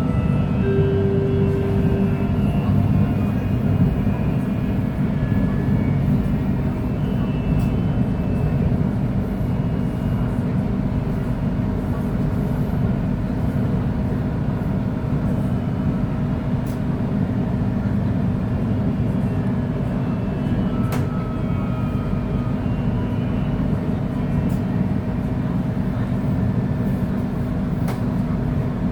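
KTM Komuter electric multiple unit running along the line, heard from inside the carriage: a steady low rumble from the wheels and rails with a constant motor hum. A short steady tone sounds for a second or so near the start.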